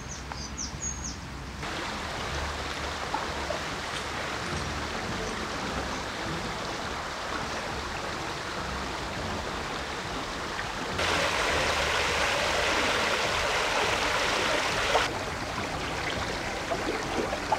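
A small brook running fast over shallows, a steady rushing and burbling of water that grows louder for a few seconds past the middle.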